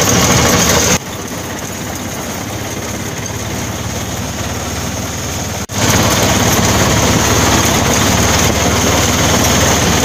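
Auto-rickshaw engine and road noise heard from inside the cab while riding. It drops abruptly to a quieter level about a second in and comes back loud just before the six-second mark.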